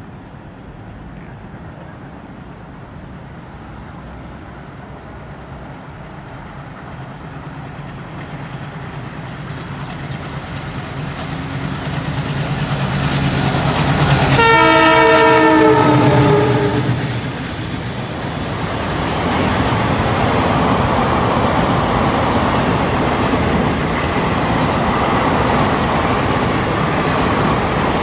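An ALCO diesel locomotive hauling an intercity passenger train approaches, growing steadily louder. About halfway through it blows a multi-tone horn for roughly two and a half seconds, the pitch falling slightly as it passes. The coaches then rush by with a steady rumble and wheel clatter on the rails.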